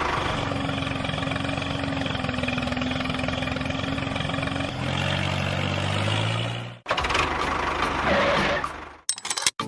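Tractor engine running steadily, with a steady whine over it for the first few seconds and a lower drone after that. It cuts off abruptly about three-quarters of the way through, starts again briefly, and a few sharp clicks end it.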